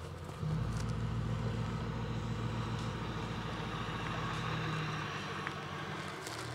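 A steady low mechanical hum that starts abruptly about half a second in and eases off near the end.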